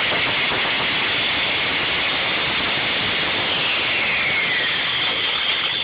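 Electric countertop blender running steadily at full speed with a flip phone in its jar, with a faint whine that falls in pitch around four seconds in.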